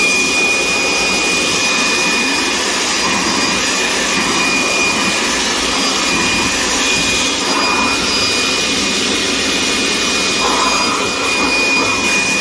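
Handheld electric air blower running at full speed, blowing dust out of a split air conditioner's blower wheel: a steady high whine over a loud rush of air.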